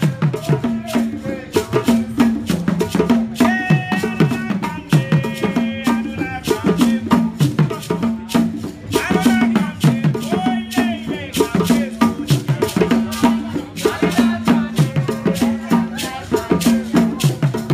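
Background music with a steady beat: a repeating bass line under dense shaker-like percussion, with a melodic line coming in twice.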